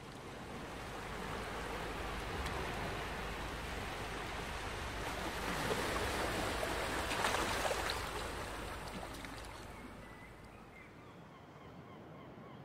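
Sea waves breaking and washing against the shore: a steady rush of surf that swells about halfway through, then fades away near the end.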